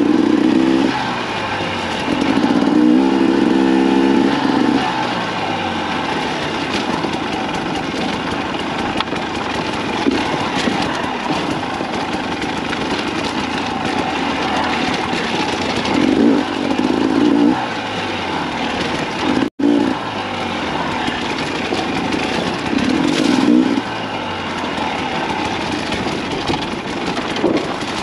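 2024 Husqvarna TE300's two-stroke single-cylinder engine running under riding load, revving up in several swells and falling back between them. The sound drops out for an instant about two-thirds of the way through.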